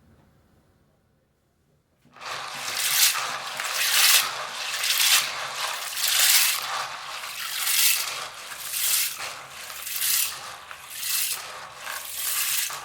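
Dried beans being washed by hand in water, rubbed and swirled in a rhythmic swish about once a second, starting about two seconds in.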